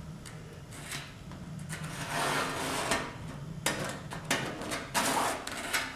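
Cardboard being handled and rubbed, making a run of scraping rustles, the longest about two seconds in and shorter ones after it.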